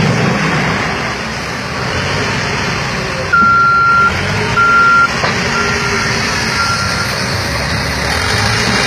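Heavy vehicle's reversing alarm beeping four times, each beep about half a second long; the first two are loud and the last two fainter. Under it is the steady running of engines.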